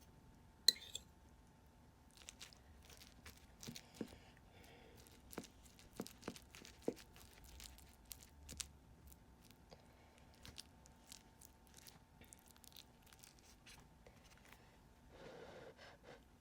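Faint, scattered small clicks and taps, the sharpest about a second in.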